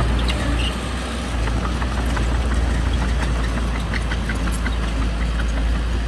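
Heavy diesel engine of earthmoving machinery running steadily with a deep low rumble, with scattered short metallic clanks and clicks over it.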